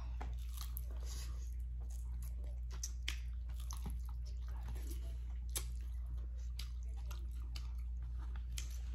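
Close-miked eating: biting and chewing, with many short scattered mouth clicks and smacks, over a steady low hum.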